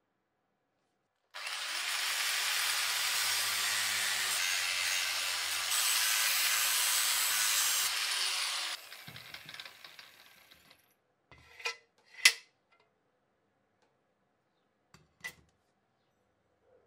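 A power tool working metal, running steadily for about seven seconds with a faint motor hum under the noise, then cutting off and fading out. A few sharp knocks follow, the loudest about twelve seconds in.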